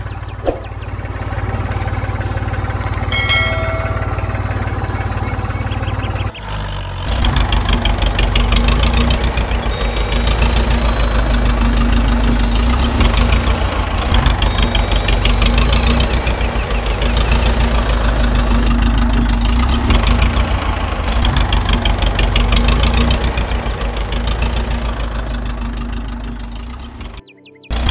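Engine running steadily with a fast, even knock, like a diesel tractor engine idling. There is a sudden break about six seconds in, and two slowly rising whines in the middle.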